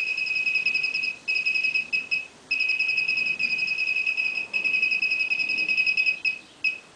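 Bricon racing-pigeon antenna pad in antenna testing mode bleeping repeatedly as an electronic chip ring is moved across it: a rapid string of high beeps in runs with short breaks, each bleep marking that the chip has been detected. The bleeping stops shortly before the end.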